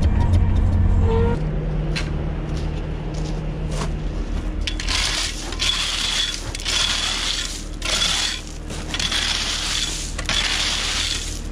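Gravel base being scraped with a hand tool in repeated gritty strokes, about one a second, starting about five seconds in. A low hum stops about a second in.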